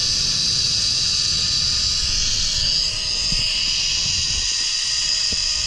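Zipline trolley running along the steel cable: a steady whirring rush with a faint whine, over a low rumble of wind buffeting the microphone.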